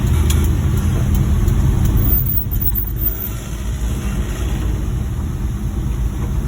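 Suzuki Multicab van driving, its engine and road noise making a steady low rumble that eases slightly about two and a half seconds in.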